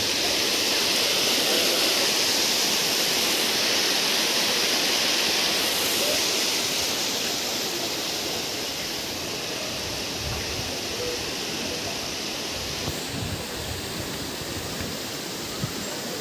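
River water rushing over rocks and small rapids, a steady even hiss that eases a little after the first few seconds. A few light thuds near the end.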